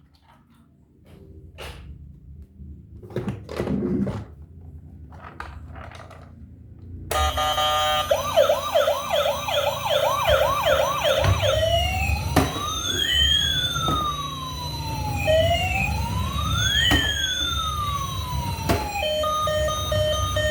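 A few faint clicks, then about seven seconds in a toy emergency vehicle's electronic siren starts: a fast repeating yelp, then slow rising and falling wails, giving way near the end to short repeated beeping tones.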